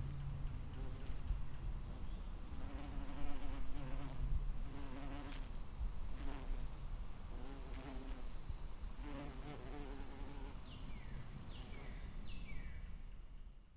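Honeybees buzzing, swelling and fading as they fly close by and away again. Several short falling chirps come near the end.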